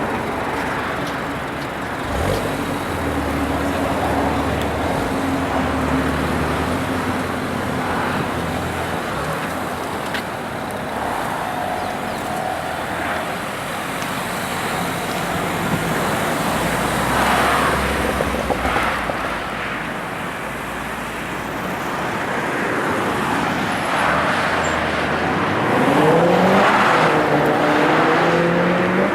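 Mini John Cooper Works GP's engine running amid road traffic noise, then revving up in rising pitch near the end as the car accelerates.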